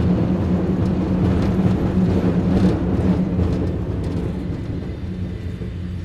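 Cable car running with a steady low hum and mechanical rumble, a few faint clicks on top, growing gradually fainter over the second half.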